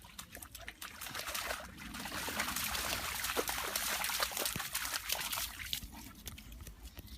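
Water trickling and splashing, swelling for a few seconds in the middle and then fading, with many small splashy clicks.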